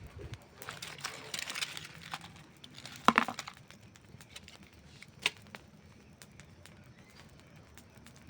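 Campfire crackling: burning wood snapping in scattered clicks, with a flurry of crackles about a second in, a loud pop about three seconds in and another sharp pop a little after five seconds.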